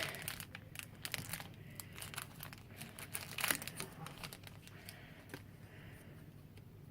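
Screen protector packaging being opened and handled: a run of small crinkling, tearing crackles, busiest over the first few seconds with a louder rustle about three and a half seconds in, then thinning out.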